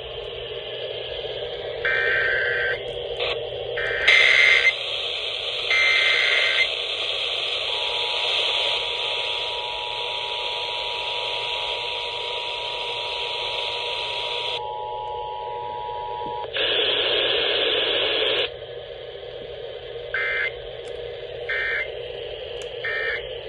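Emergency Alert System transmission heard through a hissing, static-filled radio. It opens with three short warbling data bursts of the digital header, then the steady two-tone attention signal for about nine seconds. A louder burst of static follows, then three short end-of-message data bursts near the end.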